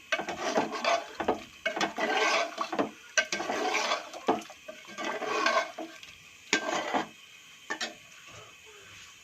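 Metal spoon stirring and scraping chicken with yogurt in a karahi, with irregular scrapes and clinks against the pan as it is stir-fried (bhuna). It thins out after about seven seconds.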